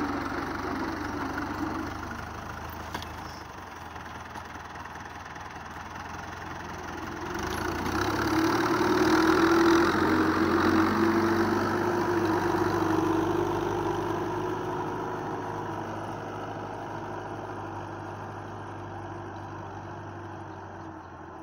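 Fiat 640 tractor's diesel engine running steadily while pulling a tine cultivator through dry soil. It grows louder about a third of the way through, then fades as the tractor works away.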